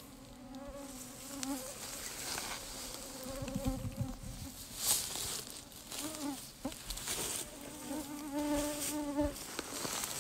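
A flying insect buzzing close by in several passes, each a slightly wavering hum lasting a second or two. Between the passes there are a few short rustles of movement through the grass.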